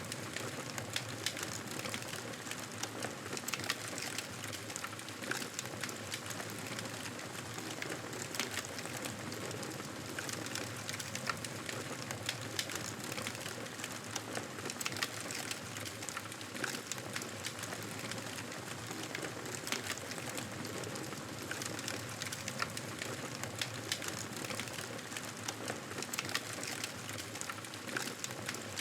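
Fireplace wood fire crackling: a steady soft hiss with frequent small sharp pops and snaps.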